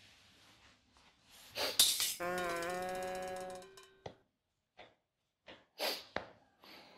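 A short musical sound effect: a sharp clashing hit about a second and a half in, then a held chord-like note with a slight dip in pitch lasting about a second and a half. A few brief faint noises follow.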